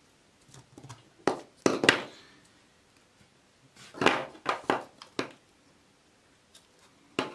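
Pliers cutting and stripping the insulation off a heat-resistant wire: sharp clicks and snaps of the jaws closing, in a cluster about a second in, another about four seconds in, and one more near the end.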